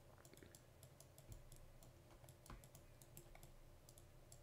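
Faint, irregular clicking of a computer mouse and keyboard, several clicks a second, over a low hum.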